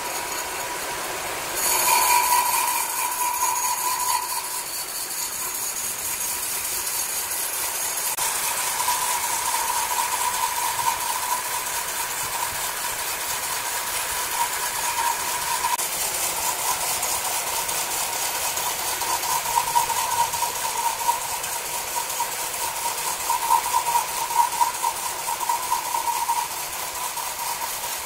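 Horizontal band sawmill running, its blade cutting lengthwise through a large timber beam: a steady mechanical noise with a whining tone that swells and fades. It gets louder about two seconds in and drops a little near the end.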